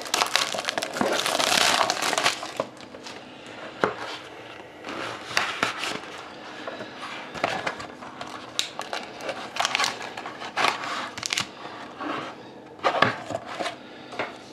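Plastic wrapping crinkling and tearing as a sealed trading-card box and its pack are opened by hand, with irregular crackling and scattered sharp clicks of handling. The crinkling is densest in the first two seconds.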